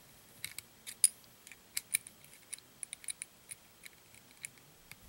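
A string of light, irregular metallic clicks from a small steel wrench against the slipper clutch nut and shaft as the nut is unscrewed off a Traxxas Rustler 4x4 slipper clutch.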